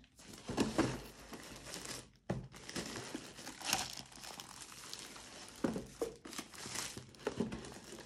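White plastic protective bag around a robot vacuum crinkling and rustling as the robot is lifted and turned over in its wrapping, with a few sharper, louder crinkles.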